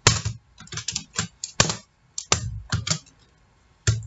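Computer keyboard being typed on: separate key clicks in short irregular runs, with a brief pause near the end.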